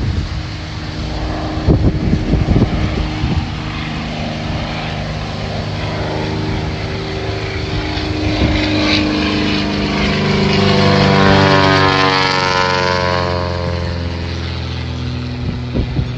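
Propeller airplane's piston engine droning as it flies past, growing louder to a peak about eleven seconds in, then falling in pitch as it moves away. A few sharp knocks sound about two seconds in.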